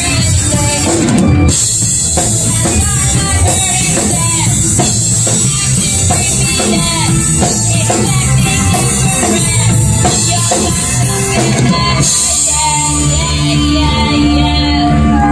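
Live rock band playing: a drum kit, guitar and bass with a voice singing over them. There is a short break about a second and a half in, and the band moves to longer held notes about twelve seconds in.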